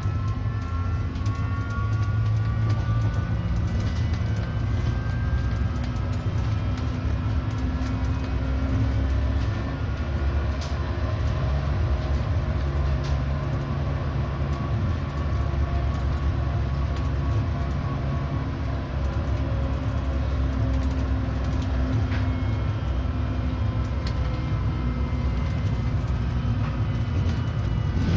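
Stadler Citylink Class 399 tram-train running along the main line, heard from inside the driver's cab: a steady low rumble of wheels on rail with a faint whining tone that rises slightly at the start. A few sharp faint clicks come through it.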